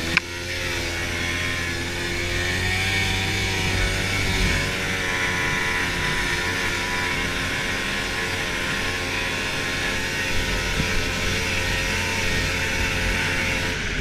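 Snowmobile engine running steadily under way at a fairly even speed, its pitch wandering a little. A sharp snap right at the start.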